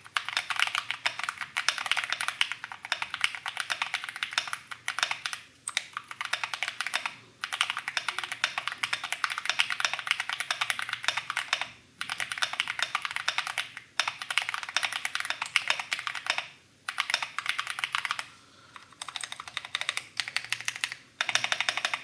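Fast typing on an Akko ACR64 acrylic gasket-mount mechanical keyboard, with Akko Jelly Purple switches on the letter keys and Cream Blue switches on the stabilised keys, fitted there to cut stabiliser tick. Rapid key clacks come in runs of a few seconds with short pauses between.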